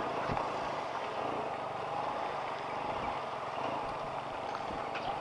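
Steady motorcycle and street traffic noise at low speed, with a faint engine hum underneath.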